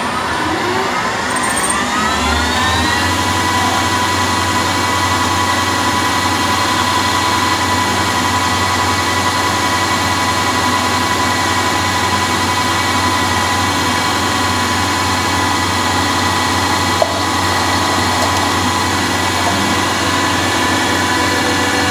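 CNC lathe spindle winding up with a rising whine over the first few seconds, then running at a steady pitch while the tool turns brass bar stock dry, without coolant. One short tick about 17 seconds in, and the spindle starts to wind down at the very end.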